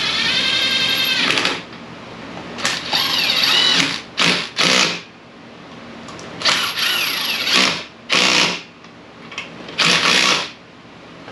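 A power tool running in four short bursts, whirring and rattling, its whine rising and falling in pitch within each burst.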